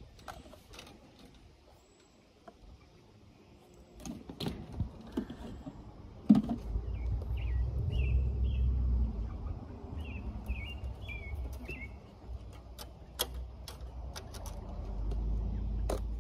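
Breeze buffeting the microphone as a low rumble, rising about six seconds in and carrying on, with a few short bird chirps in the middle and scattered taps and clicks.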